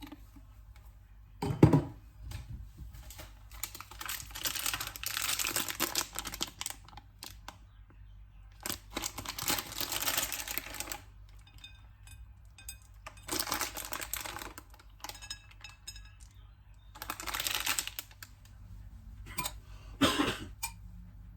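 Handling noise: a sharp knock, then several bursts of rustling with rapid clicking, each lasting a second or two, and another knock near the end.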